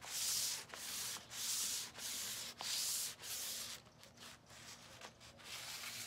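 600-grit sandpaper wrapped over a sanding sponge, wet with hemp oil, is rubbed lightly back and forth over the paint on top of a mini refrigerator, giving a hissing scrape with each stroke. There are about six even strokes in the first three and a half seconds, then shorter, fainter ones.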